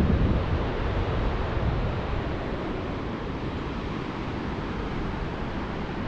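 Wind blowing across the microphone: a steady rush, heaviest at the start and easing a little after the first second.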